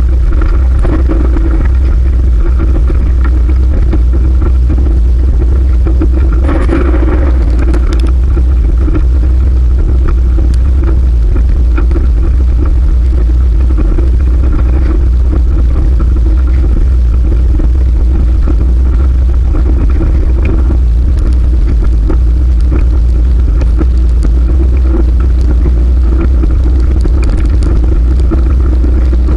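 Wind buffeting the microphone of a camera riding on a moving fixed-gear bicycle: a loud, steady low rumble with road noise beneath it, and a brief louder rush of noise about six or seven seconds in.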